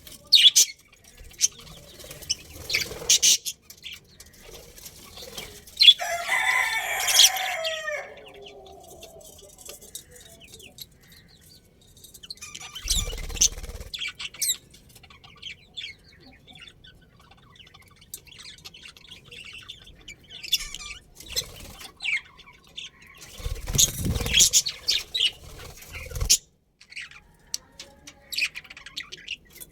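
Birds calling: short, high chirps and fluttering scattered throughout, with one longer pitched call about six seconds in, and louder bursts of noise twice later on.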